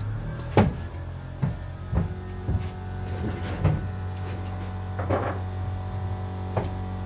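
Scattered knocks and clicks of a plastic fluid bottle and a metal brake caliper being handled while fluid is poured into the caliper. A steady low hum runs underneath.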